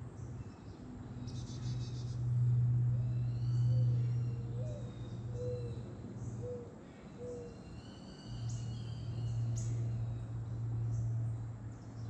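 Outdoor backyard ambience with a steady low mechanical hum as the loudest sound, dropping out twice. Small birds chirp and trill high above it, and about five short, low hooting notes come in the middle.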